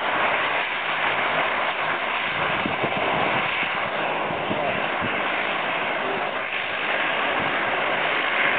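Airliner noise: a steady, loud rush of engine and rolling sound, with irregular low bumps in the middle.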